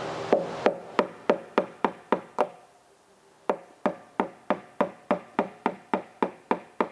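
Small hammer gently tapping a roll pin into a clutch master cylinder's hose barb fitting, the part resting on a metal support block. Two runs of light, even taps, about three a second, each with a short metallic ring, with a pause of about a second between the runs.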